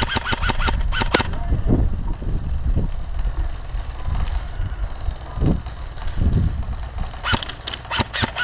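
Airsoft electric gun firing full-auto bursts, about seven or eight shots a second, for the first second and again from near the end, with a single sharp crack just after the first burst. Wind buffets the microphone with a low rumble throughout.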